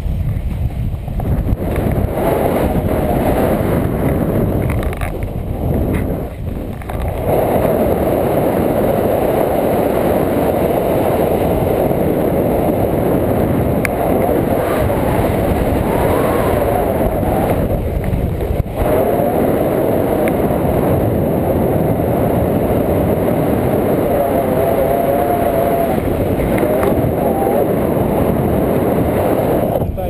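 Wind rushing over an action camera's microphone in paraglider flight: a loud, steady rush that dips briefly about six seconds in.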